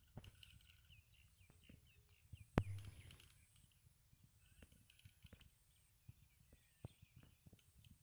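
Faint chirping of small birds in open country, with a high, faint note repeating about twice a second. Scattered light clicks, and one sharper click about two and a half seconds in.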